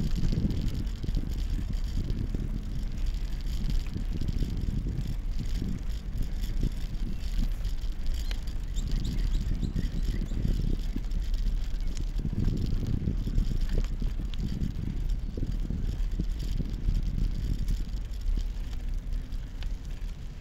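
Wind buffeting the microphone over the rumble of bicycle tyres rolling on rough asphalt, with a few small clicks and rattles from the bike.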